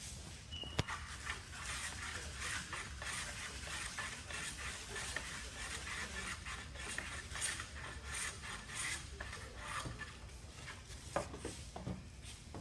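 Wooden strips of an aircraft fabric-attachment panel being rubbed and scraped by hand in quick, uneven strokes, with a sharp knock about a second in and two more near the end.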